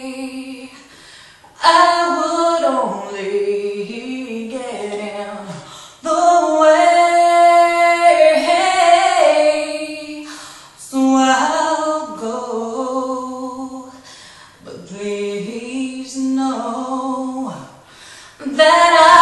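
A woman singing unaccompanied, a slow ballad in separate phrases with long held notes and short pauses between them.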